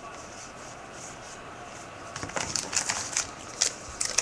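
Trading cards and their packaging being handled: a string of light clicks, rustles and crinkles that starts about halfway through.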